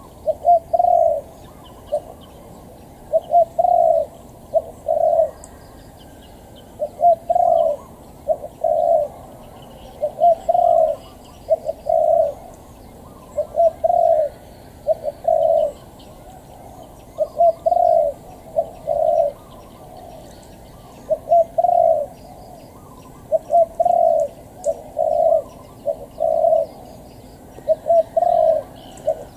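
Spotted dove cooing over and over in phrases of short and longer coos, a phrase about every two seconds.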